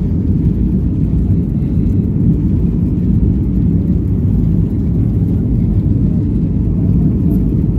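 Steady low rumble of an airliner cabin as the jet speeds along the runway: engine noise and the wheels on the tarmac, heard from inside through the fuselage.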